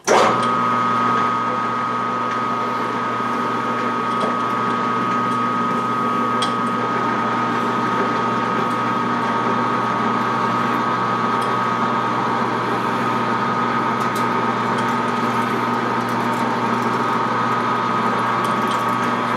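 Metal lathe starting up abruptly and running steadily at low spindle speed (60 RPM) with a steady whine, while a 5/8-inch drill bit is fed into the spinning steel stock, with a few faint ticks.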